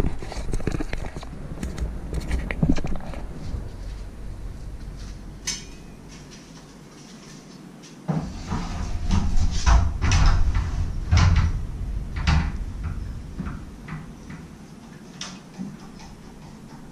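A shovel being fed into a Rhino-Rack shovel holder on a metal roof-rack platform. Light clicks come in the first few seconds, then a run of sharper knocks and clacks in the second half as the shovel meets the mounts, with a low rumble underneath.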